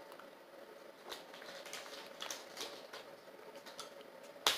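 Faint, scattered wet clicks and smacks of a child chewing a Gushers gummy fruit snack with her mouth closed, with one sharper click near the end, over a faint steady hum.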